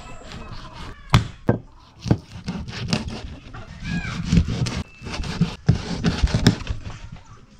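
Large knife cutting and scraping fish on a concrete slab: several sharp knocks of the blade against the slab, with quick scraping strokes between them. A brief high-pitched call comes about four seconds in.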